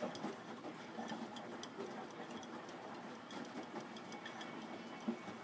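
Front-loading washing machine running a wash cycle: the drum turning and the laundry tumbling and sloshing in the water, with light clicks and knocks throughout.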